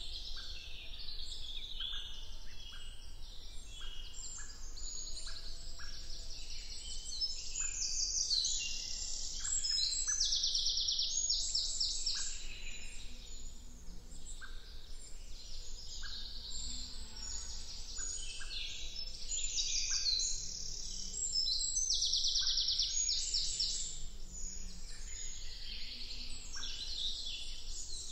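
Several woodland songbirds singing and calling at once, with overlapping trills and rapid runs of repeated notes, over a steady low rumble.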